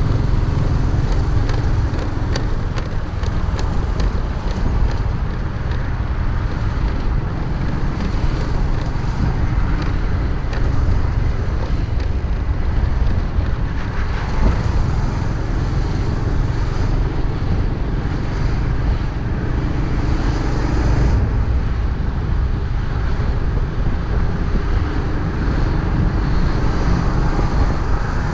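A freshly overhauled motorcycle riding in road traffic: steady engine and road noise under a heavy, constant rumble of wind on the microphone.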